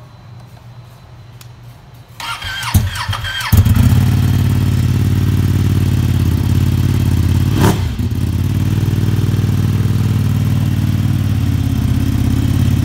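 Ducati Panigale V2's twin-cylinder engine, breathing through an Akrapovic exhaust, started by its electric starter: the starter whines for about a second, the engine catches with a sharp bang, then fires up about a second and a half later and settles into a loud, steady idle.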